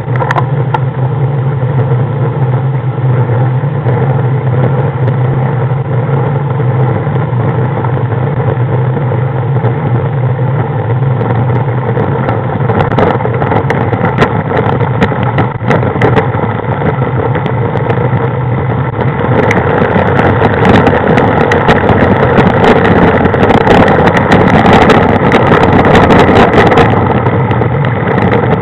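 Engine of a slow-moving road vehicle running with a steady low hum. From about 19 seconds in it grows louder and rougher, with crackling noise over it.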